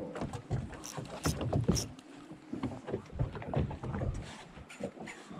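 Water lapping and slapping against the hull of a small boat, with irregular knocks and splashes, strongest in the first two seconds.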